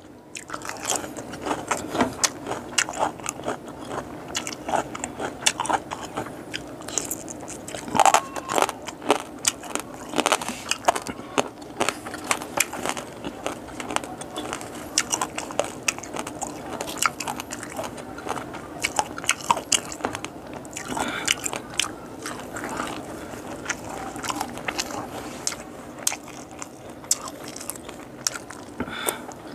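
Close-miked chewing and biting of boiled frog and lettuce: wet mouth sounds with many sharp, irregular clicks and crunches.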